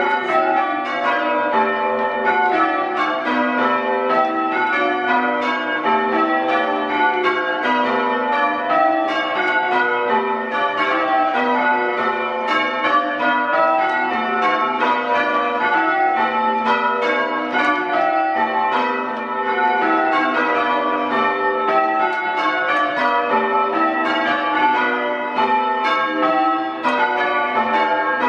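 Change ringing on a ring of six full-circle church bells, struck one after another in a steady, even succession and very loud in the ringing room beneath them.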